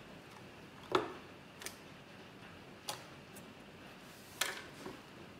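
Wooden clothes pegs being handled and set down on a wooden table: a few sharp separate clicks and knocks, the loudest about a second in and another about four and a half seconds in.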